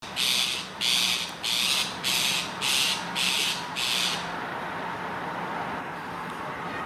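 Rose-ringed parakeet giving a run of seven harsh screeches, about one every half second, which stop about four seconds in; squabbling calls over a nest hole.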